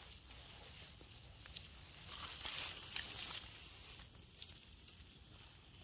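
Dry grass, bracken and forest-floor litter rustling and crackling under a hand that brushes it aside, with scattered small snaps. The rustle is loudest around the middle.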